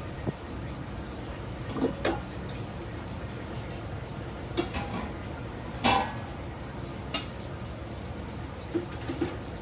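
Steady hum of a commercial kitchen's range and exhaust hood, with about eight short knocks and clacks of containers and utensils being handled, the loudest about six seconds in.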